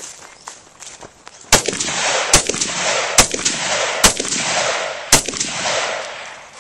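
Five single rifle shots from a Rock River Arms AR-15, a little under a second apart with the last after a longer gap, each followed by a lingering echo.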